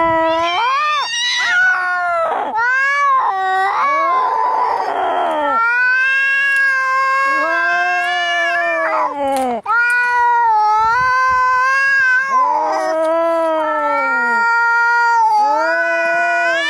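Angry cats caterwauling as in a cat fight: long, wavering yowls one after another, with a harsh, rasping cry about four seconds in.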